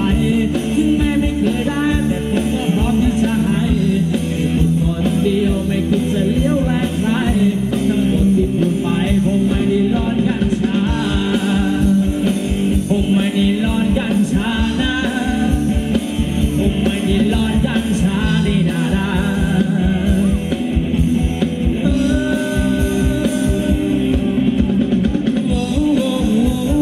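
Amplified live band playing Thai ramwong dance music, with a singer over a steady, driving drum beat.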